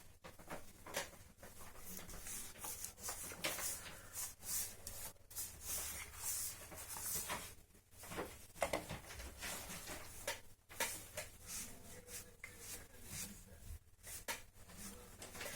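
Brush scraping over brick in quick, irregular strokes, a dry scratchy rubbing repeated every half second or so.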